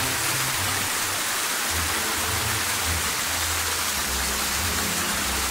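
Rain-swollen waterfall rushing steadily over rocks: a full, even roar of falling water.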